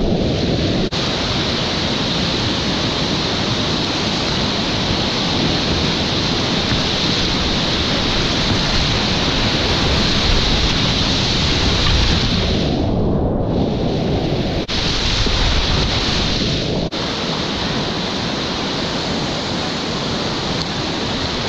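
Whitewater river rapids rushing and churning, a loud steady roar of water. About thirteen seconds in the sound briefly goes dull, losing its hiss, then comes back.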